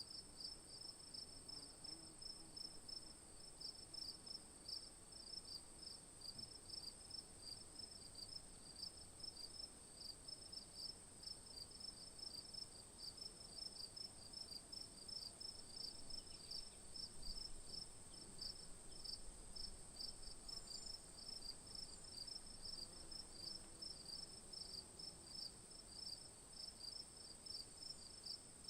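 Insects chirping in an even rhythm, a few short chirps a second, over a continuous high-pitched trill.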